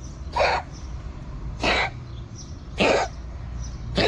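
A cat making short, raspy coughing sounds four times, a little over a second apart. This is possibly the mother cat, and the sound may be a sign that she is ill.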